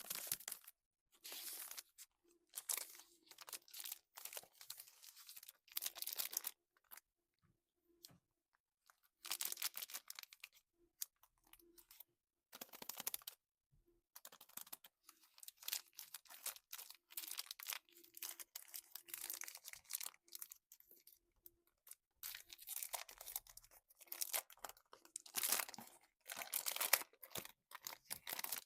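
A plastic Snickers wrapper being torn open and crinkled, in irregular bursts of rustling with short pauses between them.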